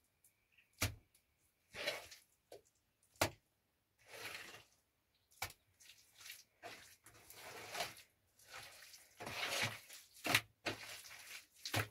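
Sharp knocks at irregular intervals, with short bursts of splashing or rushing noise between them.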